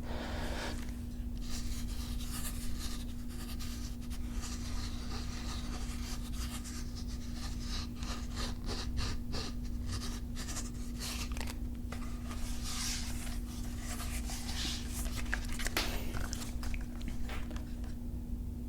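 Ruger 10/22 rifle being handled: a string of irregular small clicks, taps and rubbing scrapes of its parts and stock.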